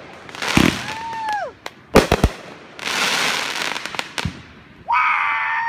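Consumer fireworks going off overhead: several sharp bangs, a quick cluster of cracks about two seconds in, and a spell of crackling. Near the end, loud drawn-out whooping from the people watching.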